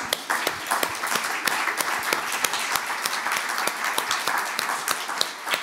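Audience applauding: many people clapping at once, fading out near the end.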